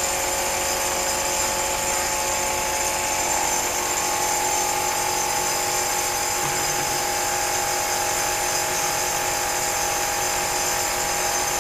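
Compressed-air spray gun hissing steadily as it sprays epoxy primer, with an air compressor running under it; a steady whine runs through the hiss.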